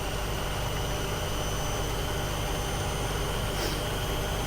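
Old Hotpoint washing machine running with its drum spinning: a steady rumble with a constant high whine over it.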